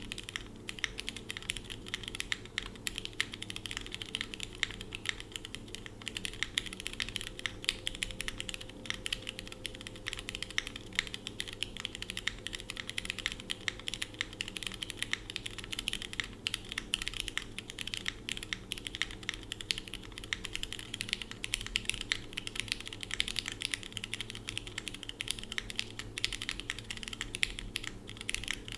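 Continuous fast typing on a mechanical keyboard with lubed and filmed Cherry MX Red linear switches in an aluminium-plate, friction-mounted case with no foam: a steady stream of many keystrokes a second. Linworks Green keycaps give way to DCX keycaps about twenty seconds in.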